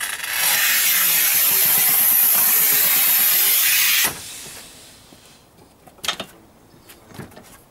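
Scoring wheel of a Sigma Kera-Cut large-format tile cutter scratching a long score line across 6 mm porcelain stoneware: a loud, steady hiss for about four seconds that stops abruptly. Two short knocks follow near the end.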